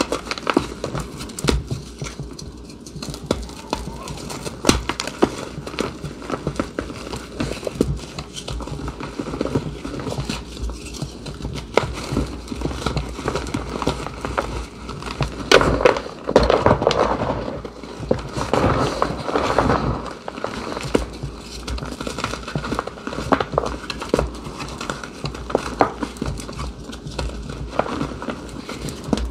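Blocks of reformed gym chalk crushed and crumbled by hand into loose chalk powder: dry crunching and crackling with soft crumbly thuds, louder for a few seconds past the middle.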